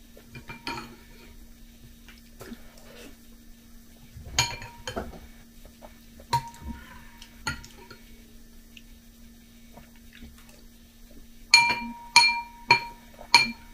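Metal spoon clinking against a glass bowl of cereal flakes and milk: scattered single strikes that ring briefly, then a quick run of about five clinks near the end, over a faint steady hum.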